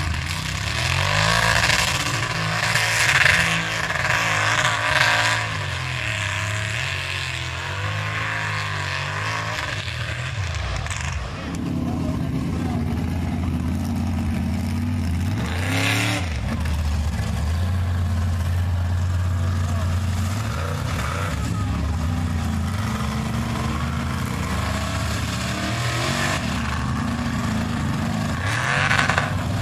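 Engine of a lifted 1940s Chevrolet pickup mega truck running and revving as it drives through mud, its pitch rising and falling with the throttle.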